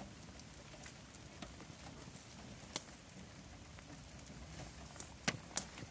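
Faint steady rain patter, with a few sharp ticks about halfway through and near the end.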